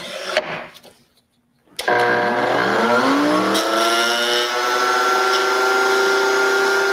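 Table-mounted router switched on: its motor starts about two seconds in with a whine that rises in pitch for about two seconds as it spins up to speed, then runs steadily at full speed.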